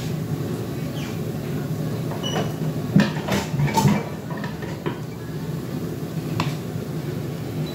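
Cookware being handled on a kitchen counter: scattered knocks and clatters, busiest about three to four seconds in, over a steady low hum. A black frying pan is set down or moved near the end.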